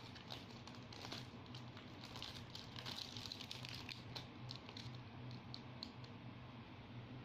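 Plastic biscuit packaging crinkling and crackling as a hand pulls a wrapped pack of biscuits out of a larger bag. The crackling is faint and uneven, busiest in the middle, over a low steady hum.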